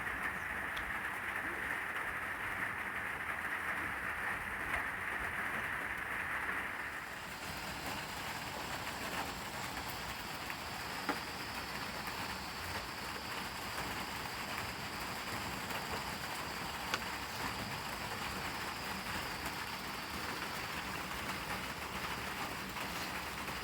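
Heavy rain falling steadily, a continuous hiss that turns brighter about seven seconds in, with a couple of sharp ticks from drops.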